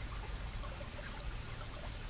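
Small mountain stream trickling and splashing over rocks: a steady rush of running water with scattered small plinks of water.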